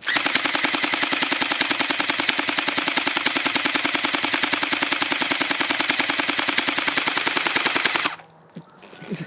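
Electric gel blaster firing on full auto: one continuous burst of rapid, evenly spaced shots lasting about eight seconds, then cutting off suddenly.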